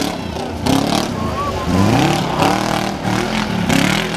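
Car engine revving hard, its pitch climbing and dropping several times as the throttle is worked.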